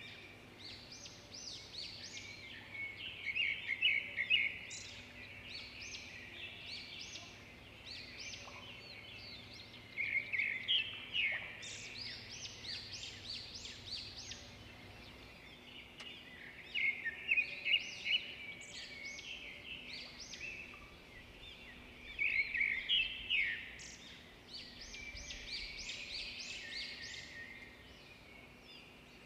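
Birds chirping and singing: clusters of rapid high chirps every six or seven seconds, with quieter chirping between them.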